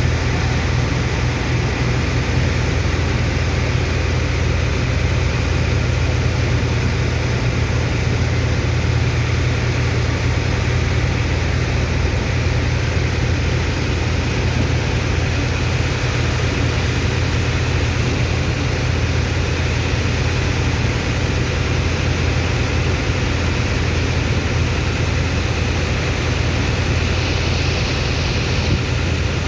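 Engine of a sand-dredging pump running steadily: a loud, unchanging low drone with an even hiss over it.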